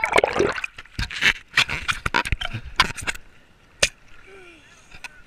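Water splashing and knocking against a waterproof action camera's housing as it is dunked under and lifted out of shallow water. The knocks are dense for about three seconds, then it settles to quieter sloshing with faint distant voices.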